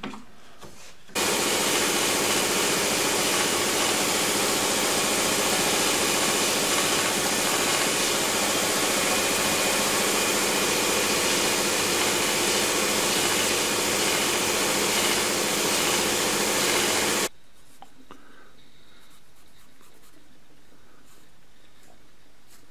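An electric power tool starts about a second in, runs steadily with a constant motor hum and a wide hiss, and cuts off abruptly about sixteen seconds later.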